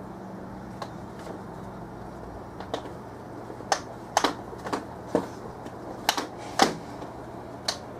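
Bristle brush dabbing oil paint onto a canvas: irregular sharp taps, a few faint ones first, then about a dozen louder ones in the second half. A steady low hum runs underneath.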